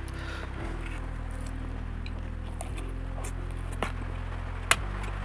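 Wet chewing and squishing of a soft steamed bun being eaten, with sharp clicks of a spoon against the plate, the loudest about four and a half seconds in. Low sustained background tones shift in pitch a few times underneath.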